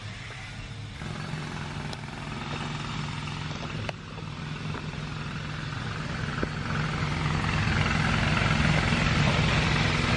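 An engine running steadily, its low hum growing louder over the last few seconds.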